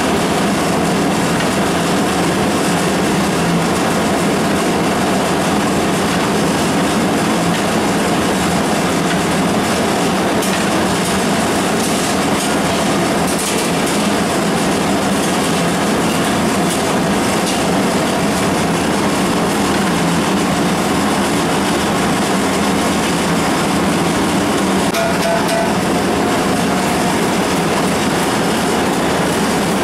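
Steady loud roar of a commercial kitchen gas burner heating a large aluminium pot of sambar, with a few light metal clinks about midway.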